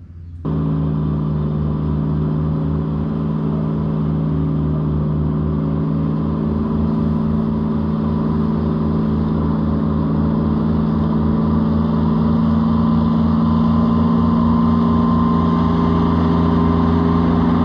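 Gianni Ferrari PG280DW ride-on mower running steadily while cutting, its engine driving the 3x1 flail deck and collection auger. It grows slightly louder as the mower comes closer.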